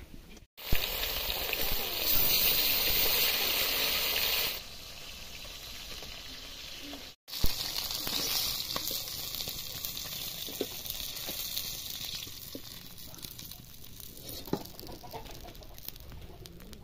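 Fish sizzling as it fries in hot oil in a pan. The sizzle is loud for the first few seconds, then settles to a softer, steady sizzle, and the sound drops out briefly twice.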